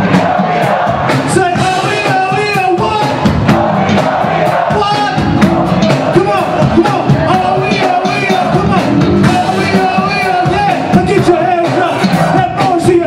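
Funk band playing live and loud, a steady drum beat under keyboards and a wavering sung melody, with crowd noise from the audience.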